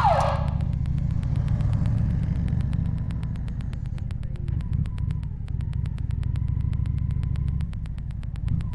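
Honda Shadow 750 Aero's V-twin engine running at low revs with an even, rapid pulsing beat. A short falling squeal comes right at the start.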